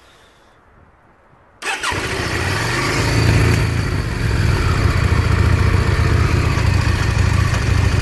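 The air-cooled V-twin of a 2003 Yamaha V-Star motorcycle fires up about a second and a half in and then runs steadily at idle.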